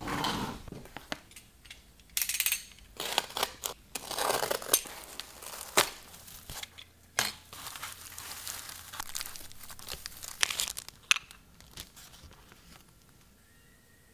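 Shredded paper packing crinkling and rustling in irregular bursts as hands dig through it in a cardboard box, with a louder burst right at the start. It dies away about a second before the end.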